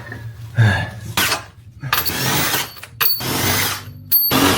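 Rough, noisy scraping from tool work during an engine teardown, in four bursts of about a second each.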